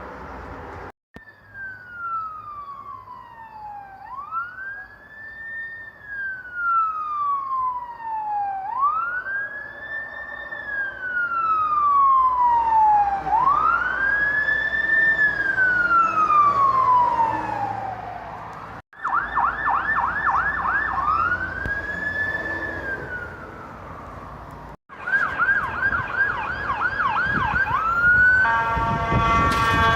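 Emergency vehicle electronic sirens: a slow wail, sweeping down and back up every four to five seconds and growing louder as it nears. After a cut comes a rapid yelp alternating with wail rises. Near the end there is a loud, steady horn blast.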